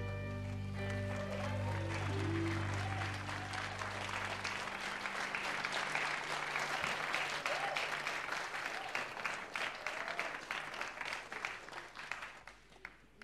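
Studio audience applauding as a live band's closing chord rings out with its bass; the chord fades about four to five seconds in and the clapping dies away near the end.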